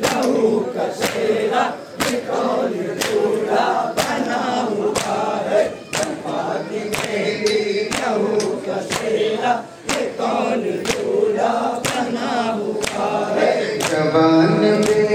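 Nauha chanted by a male lead voice over a loudspeaker, with a crowd of men chanting along, keeping time with matam: hands striking chests in a steady beat about twice a second. A single lead voice stands out more clearly near the end.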